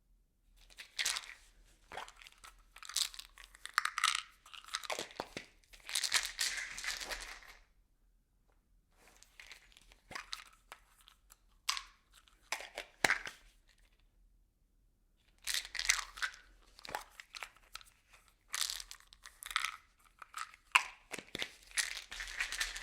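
Small objects shaken and rattling inside a plastic bottle: dense, irregular clicking and crackling in several bursts, with two short pauses between them.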